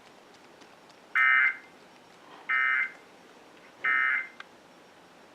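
Emergency Alert System end-of-message signal on NOAA Weather Radio: three short bursts of screechy digital data tones about a second apart, marking the end of the severe thunderstorm warning broadcast.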